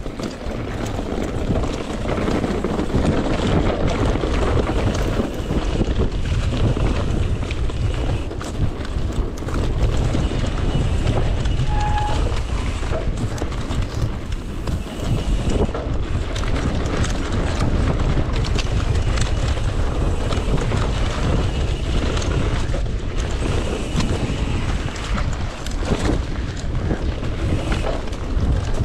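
Wind buffeting the microphone over the rumble and rattle of mountain-bike tyres on a rough dirt and gravel trail at speed, with many small knocks from the bike. A short squeak about twelve seconds in.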